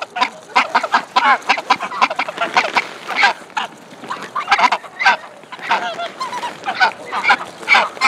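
Flock of greylag geese feeding close by, their bills pecking grain off pavement in rapid, irregular clicks, mixed with short honking calls.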